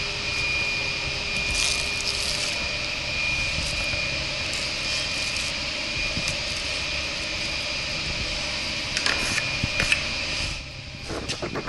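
Steady motor hum with a constant high whine, which stops near the end, with a few light knocks just before it stops.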